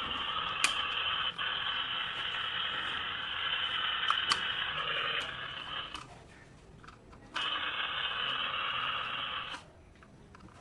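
Toy RC monster truck's small electric motor and gears whirring steadily, cutting out twice for a second or so, with a few sharp clicks.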